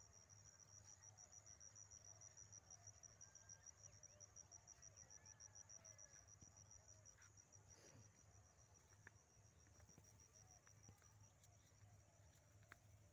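Faint, high insect trill, a rapid even pulsing that fades out near the end, with a few faint clicks over it.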